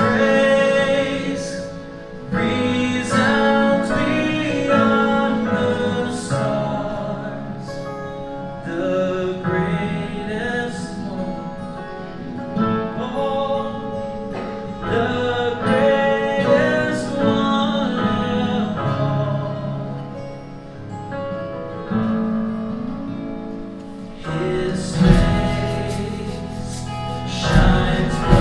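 Live worship band music: a voice singing over strummed acoustic guitar and sustained keyboard. About 25 seconds in, the band comes in louder and fuller, with cymbals.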